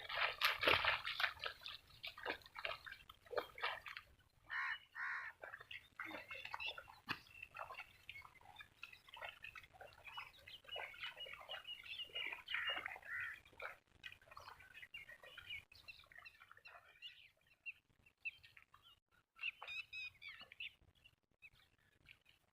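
Faint birds calling, many short chirping calls scattered throughout.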